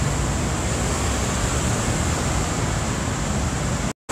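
Steady city traffic noise, a low rumble under an even hiss, cut off abruptly near the end.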